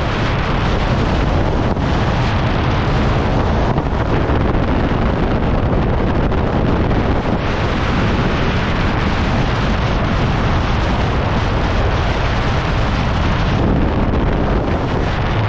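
Wind blowing hard across a phone microphone: a loud, steady noise with no clear engine note.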